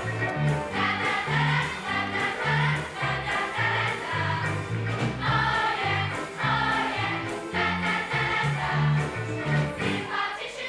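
A chorus of girls singing a lively stage-musical number together over an accompaniment with a bass line that steps to a new note about twice a second.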